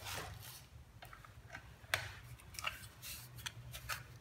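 Quiet handling noise: a few scattered light clicks and taps over a faint low hum.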